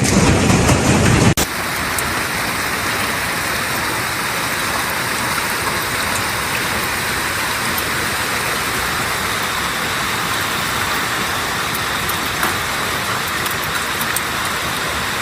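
A loud low rumble cuts off abruptly about a second in. It gives way to a steady dense hiss of heavy hail and rain pelting down, with scattered sharp ticks of stones striking.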